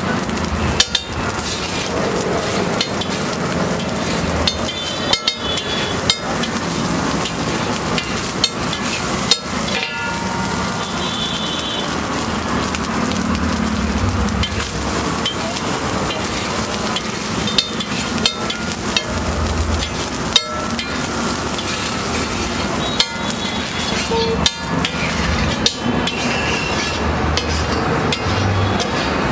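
Long metal spatula scraping and tapping on a large flat iron griddle (tawa) as fried rice cooks on it, with sharp irregular clanks over a steady frying sizzle.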